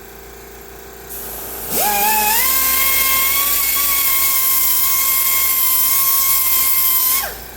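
Electric grinder with a grinding wheel switched on about two seconds in, whining up to speed and running steadily with a bright hiss as it grinds a lawnmower blade's cutting edge, then switched off near the end, its whine falling as the wheel spins down.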